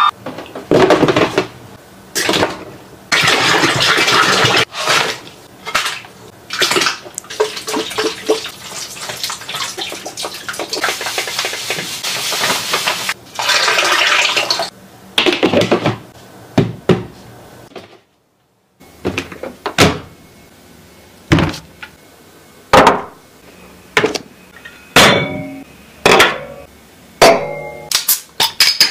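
Liquid poured and splashing in long stretches through the first half, with chili oil ladled from a scoop into a tub of crab and peppers. After a brief silent break comes a run of separate sharp knocks and cracks, some ringing, from a cleaver and a glass beer bottle striking the cooked crab's shell.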